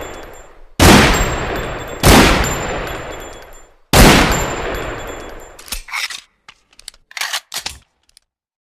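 Desert Eagle pistol firing three shots, each a loud sharp crack with a long echoing tail, the second and third coming about one and two seconds after the first. They are followed by a quick run of short metallic clicks and clacks from the pistol's mechanism.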